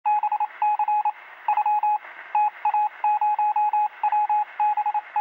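Short electronic beeps in quick, uneven groups over a hissy, thin-sounding radio channel, like a radio transmission. The sound cuts in suddenly.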